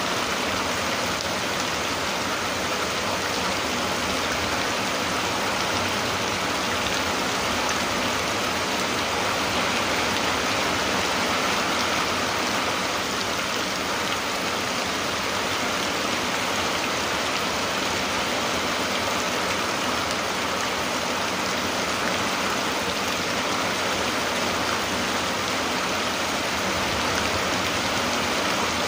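Steady rain falling, an even, unbroken hiss of drops.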